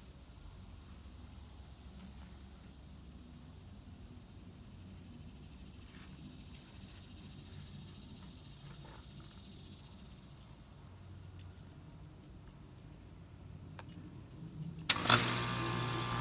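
Faint insects chirping, then about 15 seconds in a 2004 Lennox Elite Series 2.5-ton central air conditioner condensing unit kicks on with a sudden clunk and starts running with a steady hum in cool mode.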